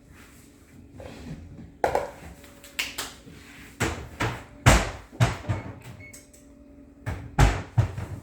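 Kitchen clatter: a run of sharp knocks and bumps as things are handled, loudest about five seconds in and again near the end.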